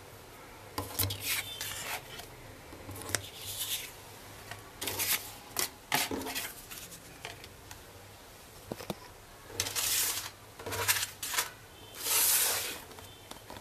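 Watch packaging (a guarantee card and a cardboard box) being handled and slid on a table: a series of short rustles and scrapes, with a sharp tick partway through and a longer rub near the end.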